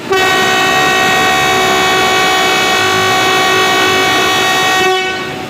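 Indian Railways WAP-7 electric locomotive's horn sounding one long, steady, single-note blast of about five seconds, cutting off near the end: the departure signal.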